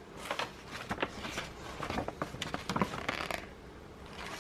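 A paper pamphlet and packaging rustling and crinkling as they are handled, in a run of small crackles that dies down near the end.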